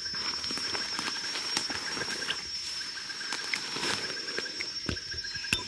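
Mountain gorillas in forest undergrowth: crackling and snapping of vegetation with low animal sounds, over a steady high insect drone and a rapid pulsing insect call.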